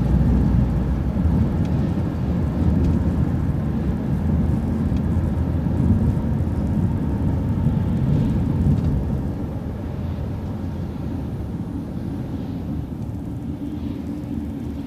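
City transit bus running, heard from on board: a steady low engine and road rumble that drops noticeably about nine seconds in.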